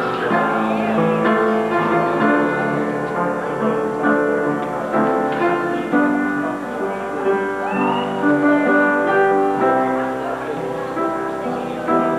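Instrumental music on a keyboard, held chords with a melody moving over them.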